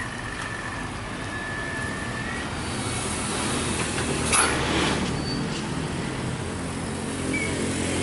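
Mountain-road traffic: a heavy tanker truck's diesel engine running at low revs while motorcycles pass. A short, sharp hiss comes about four seconds in.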